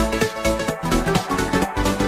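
Electronic dance music with a steady beat, about two beats a second, over sustained synth notes.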